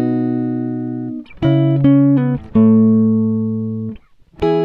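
Background music: sustained chords that slowly fade. The first is held for about a second, then comes a quick run of changes and a long chord, a brief pause, and a new chord near the end.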